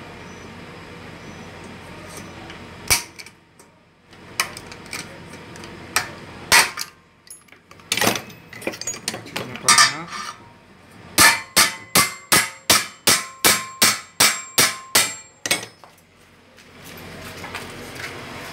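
Hammer blows on the metal end cap of a motorcycle muffler, setting rivets: a few separate strikes, then a quick, even run of about fourteen ringing metal blows, about three a second, in the second half.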